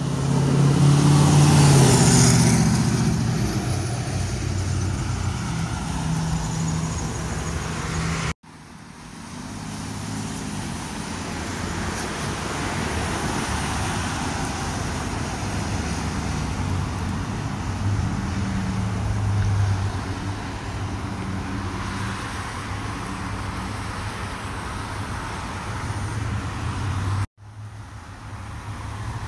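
Road traffic passing. A lifted pickup truck goes by with a loud engine about two seconds in, the loudest moment, followed by a steady flow of pickups, SUVs and cars driving past.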